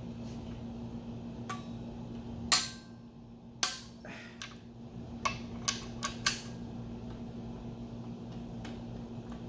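Metal hand tools clicking and clinking against the N20 engine's camshaft hardware as its bolts are tightened: scattered single sharp clicks, the loudest about two and a half seconds in, over a steady low hum.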